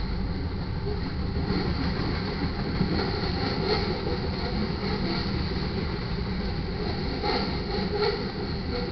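Freight train's covered hopper cars rolling past at close range: a steady rumble and rattle of steel wheels on rail, with a couple of sharper clanks near the end.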